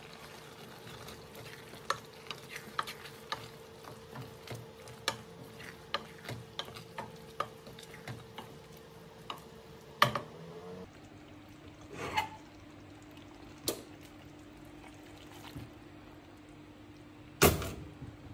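Food frying in a pan while a spoon stirs it, clicking against the pan many times, with a few louder knocks. Under it runs a steady hum that drops to a lower pitch about ten seconds in.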